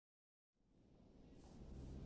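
Near silence: a faint film score with steady low notes fades in after about half a second.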